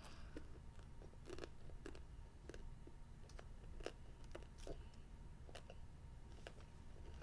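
A child chewing a jelly bean: faint chewing with irregular small clicks and crunches, about one or two a second.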